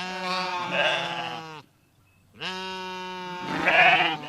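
Two long bleats from a sheep or goat, a short pause between them, the second growing louder toward its end.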